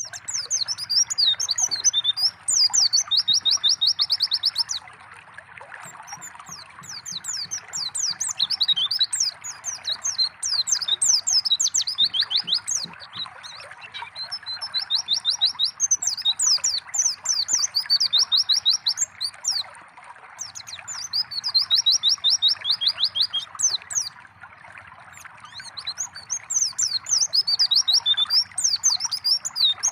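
White-eye (pleci) singing in bouts of fast, rapidly repeated high chattering notes, five bouts broken by short pauses, over a steady trickle of running water.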